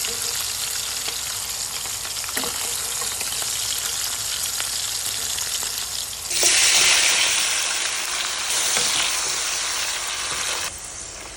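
Sausage frying in a pan with a steady sizzle and a few light clicks. About six seconds in the sizzle turns suddenly louder, then drops back just before the end.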